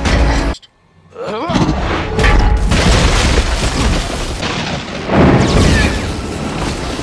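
Film action-scene sound mix: deep booms and rumbling impacts over score music. The sound cuts out suddenly about half a second in, returns with sliding whooshes, and swells into another heavy boom about five seconds in.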